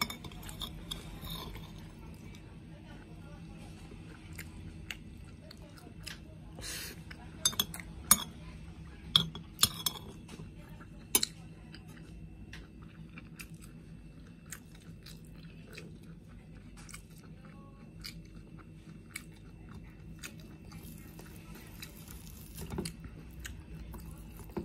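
A person chewing grilled frog and rice close to the microphone, with many short sharp clicks and a few louder taps between about 7 and 11 seconds in, over a steady low hum.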